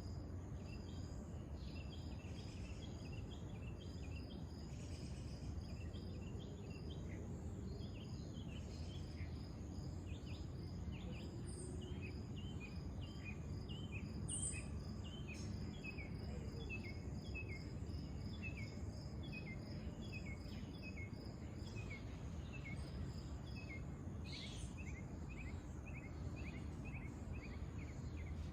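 Outdoor ambience: insects chirping in an even run of short repeated chirps, with a few brief higher calls scattered through, over a steady low rumble.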